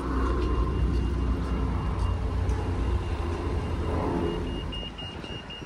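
Road traffic: a vehicle's engine rumble that dies away after about four seconds. Near the end a pedestrian crossing signal beeps rapidly in a high tone.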